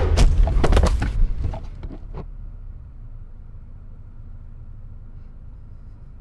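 Car engine rumbling loudly, broken by a quick run of sharp knocks in the first second or so, the loudest about a second in, then falling away to a low steady hum.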